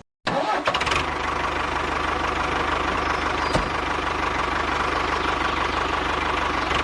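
An engine starts abruptly and runs steadily at an even idle with a fast, fine low chatter.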